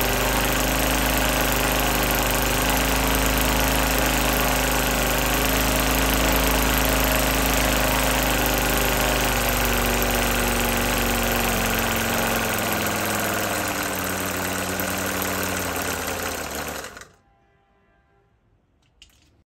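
Morton M5 five-cylinder four-stroke scale model radial engine running steadily with its wooden propeller turning, its note shifting a little about twelve seconds in. Near the end it falls silent suddenly, followed by one faint knock.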